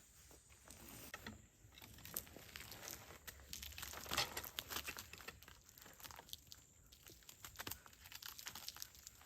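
Faint irregular crunching and crackling, with scattered sharp clicks.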